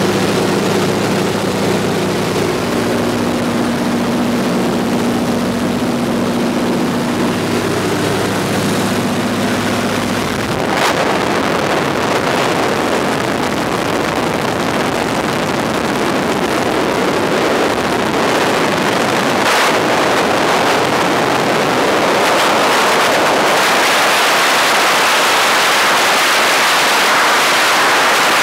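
Steady drone of a de Havilland Beaver's nine-cylinder Pratt & Whitney R-985 radial engine and propeller in cruise, heard in the cabin. About ten seconds in the engine tone gives way to a loud rush of wind on the microphone, as from the camera held out of the open window, and the rush swells slightly toward the end with a couple of brief knocks.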